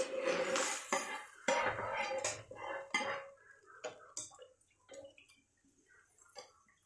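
Chopsticks and a spatula scraping and knocking against a frying pan as cooked clam meat is scraped out of it into a pot. A busy clatter for about the first three seconds, then scattered single taps that die away near the end.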